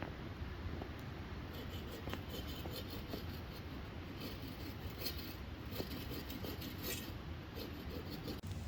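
Scattered raindrops ticking irregularly over a steady low rumble of wind during a storm.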